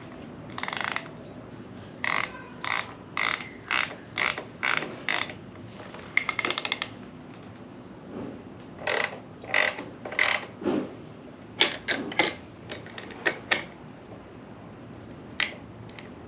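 Hand socket ratchet clicking in short bursts, roughly two strokes a second with a few pauses, as a nut is run down and tightened; one last stroke near the end.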